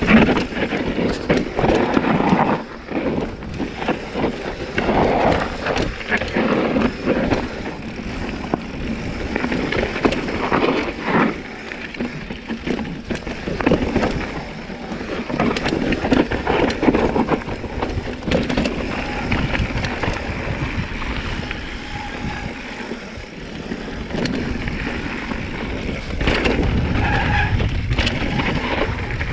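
Giant Trance 3 full-suspension mountain bike descending a rough downhill trail: tyres skidding and crunching over dirt and rocks, the bike knocking and rattling over bumps, with wind on the microphone.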